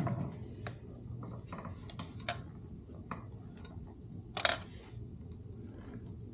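Scattered small metallic clicks and taps as a motorcycle's shifter arm and linkage parts are handled and pushed into place, with one sharper click about four and a half seconds in, over a low steady hum. The part is not seating all the way.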